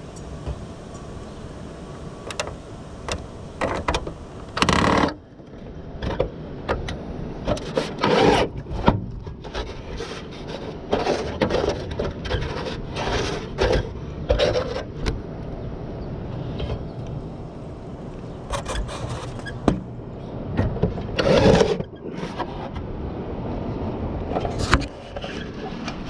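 A sheet of aluminum being fitted under the roof edge and screwed down: the thin metal scrapes and rubs against wood and the gutter, with knocks and several short louder bursts as two screws go in.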